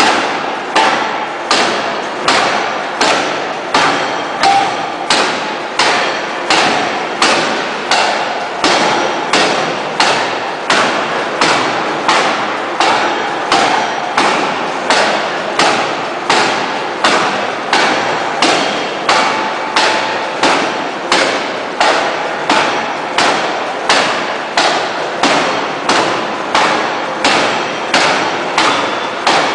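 Hydraulic open-die forging hammer striking a red-hot steel bar on the anvil at an even pace of about three heavy blows every two seconds, each blow ringing off briefly before the next.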